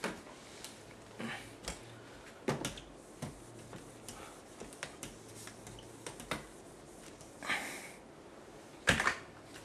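Whiteboard eraser rubbing across the board in a few short strokes, among scattered light knocks and clicks. A sharper knock comes near the end.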